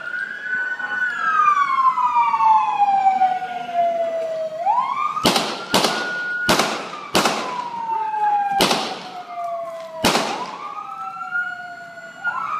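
Six gunshots from a police handgun at uneven spacing, from about five seconds in to about ten seconds in, over a wailing emergency-vehicle siren whose pitch slides slowly down and then quickly back up.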